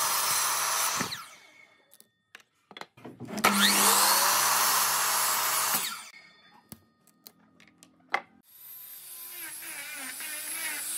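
Sliding miter saw cutting small wooden blocks: the first cut winds down about a second in, then the motor spins up again with a rising whine, cuts for about two seconds and stops, with clicks of the saw head and handled wood in the gaps. Near the end a small angle grinder with a sanding disc starts sanding a board, its pitch wavering as it is pressed on.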